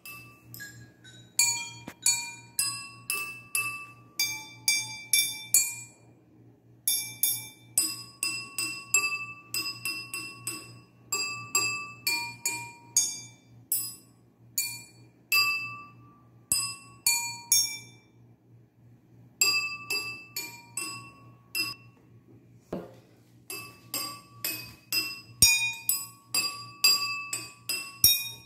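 Water-filled wine glasses struck one at a time, playing a simple tune of clear ringing notes at different pitches, about two a second, with a few short pauses.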